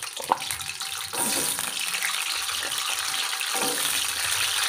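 Sliced jengkol frying in shallow oil in a wok, a steady sizzling hiss that gets denser and louder about a second in.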